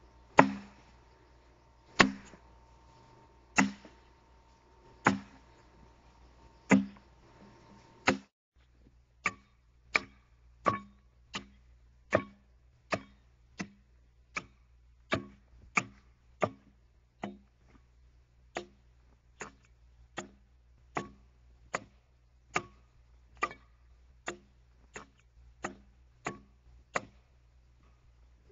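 Axe blows striking into an oak log as a railroad tie is hewn by hand. Strikes come about once every second and a half, then after a brief break about eight seconds in, a quicker run of strokes follows, roughly one every 0.7 seconds.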